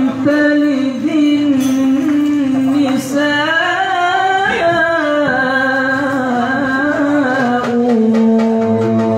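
A solo voice sings a hadroh devotional chant in Arabic. It holds long, level notes and, midway, sings an ornamented run that rises and falls.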